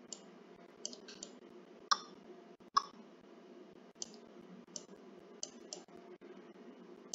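Computer mouse button clicking now and then, about ten short clicks spaced irregularly, as strokes are drawn with a paint brush tool, over a faint steady room hum.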